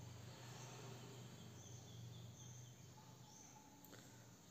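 Near silence: faint room tone with a low hum, a few faint high chirps, and one soft click near the end.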